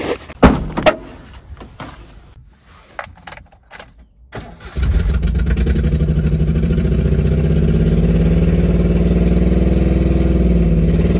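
A few sharp clicks and knocks as a battery terminal clamp is fitted, then, about five seconds in, a Daihatsu Hijet mini pickup's small petrol engine is running steadily, brought back to life after the battery is reconnected. Its pitch rises a little and drops back near the end.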